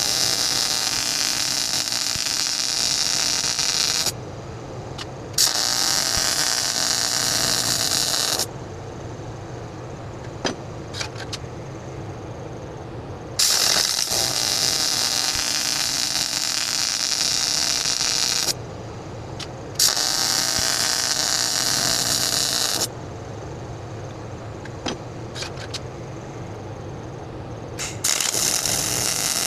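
Electric arc welding, likely stick welding: the arc crackles and hisses in about five runs of three to five seconds each. Each run starts and stops abruptly, with short pauses between them. A steady low hum sits underneath.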